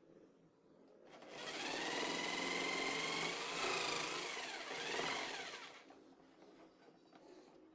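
Handheld electric jigsaw starting up about a second in and cutting a circle through thin board on a pivoting circle jig, its pitch wavering as the blade works through the curve. After about five seconds it winds down and stops.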